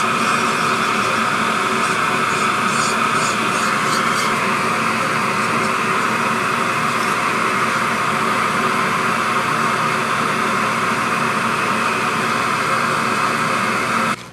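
Dental mouthpiece-forming machine running with a loud, steady noise, which cuts off suddenly near the end.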